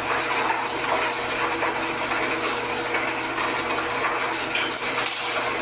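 Clothes dryer running: a steady mechanical hum and whir that holds at an even level throughout.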